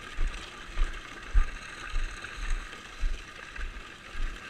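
Footsteps of someone walking on a trail, with the camera held by the walker: low thuds about twice a second, over a steady high-pitched hiss.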